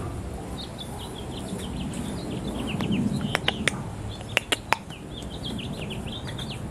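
Small birds chirping in quick, repeated high notes, with two groups of three sharp clicks about a second apart in the middle.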